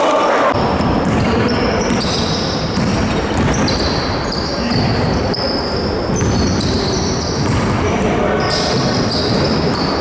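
Basketball game play in a large gym: a basketball bouncing on the court floor, with players' voices echoing around the hall.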